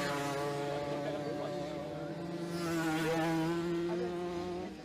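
Small two-stroke moped engines buzzing at high revs. One gets louder as it passes close about three seconds in, and the sound drops away suddenly near the end.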